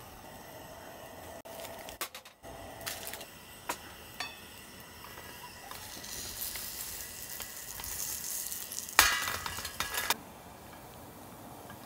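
Food sizzling in a hot pan, with a few sharp clinks in the first few seconds and a loud burst of sizzling lasting about a second near the end.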